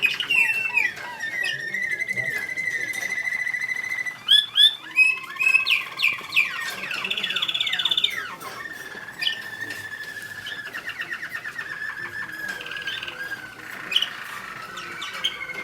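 American Singer canary song: long held whistled notes and fast rolled trills, with a run of sharp, loud chips about four to six seconds in.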